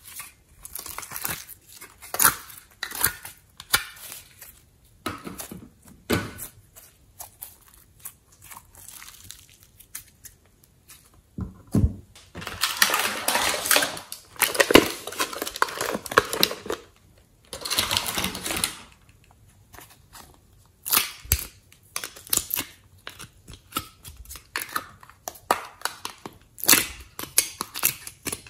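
Hard plastic containers clicking and tapping as they are opened and handled. About halfway through come two longer stretches of scraping and squelching as slime is scraped out with a spatula into a glass dish.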